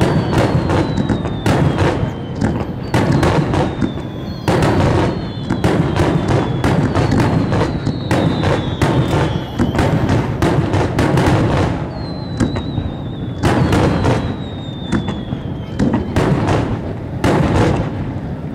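Aerial firework shells bursting in a dense finale barrage: rapid, overlapping booms and crackle with no gaps. About six long whistles slide down in pitch above the bursts, one every couple of seconds.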